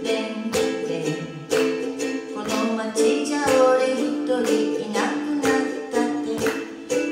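Ukulele strummed in a steady rhythm, about two strums a second, playing a chord progression.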